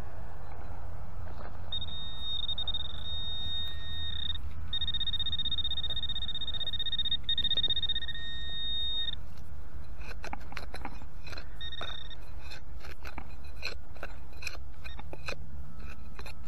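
High-pitched electronic beep of a metal detector over a target, sounding in long stretches with short breaks for about seven seconds. Then a target is being dug out: irregular scraping and knocks in the soil, with one more short beep.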